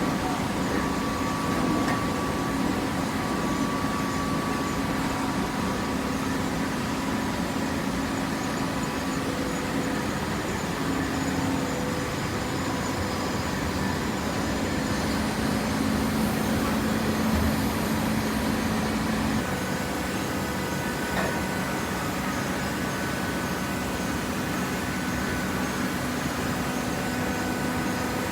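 Self-tying cardboard baler running: a steady machine hum with its hydraulic power unit's motor and pump tones over a bed of machine noise, the pitch of the hum shifting about two-thirds of the way through.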